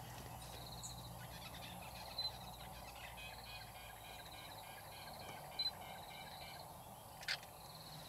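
Outdoor wildlife ambience: high buzzy trills repeat about once a second, with a rapid chirping chorus in the middle. Three short sharp notes come about two, five and a half, and seven seconds in.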